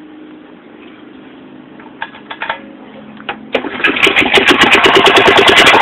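Small engine starting: a few clicks, then about three and a half seconds in it catches and runs loudly with a rapid, even beat.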